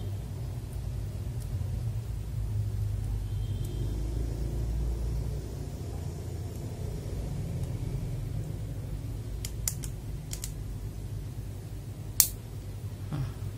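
Steady low hum of room noise, with a few light clicks from handling mechanical keyboard parts, then one sharp plastic click near the end.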